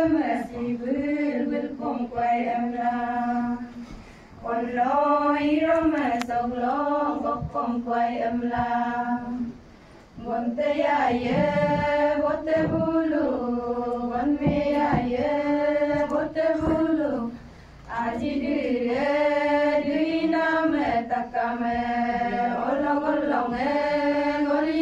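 A group of women singing a song together in unison, in long held phrases with brief pauses for breath between them.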